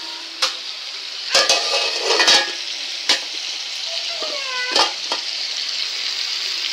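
Chicken pieces frying in oil in a skillet on a gas stove, a steady sizzle. Sharp clinks and scrapes of a utensil against the pan come several times, bunched around one and a half to two and a half seconds in. A short gliding call comes a little after four seconds.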